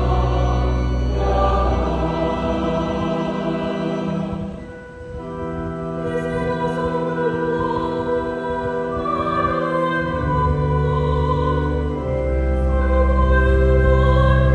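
A woman cantor singing slow liturgical music into a lectern microphone, with held notes over a sustained low instrumental accompaniment. The music dips briefly about five seconds in, then resumes.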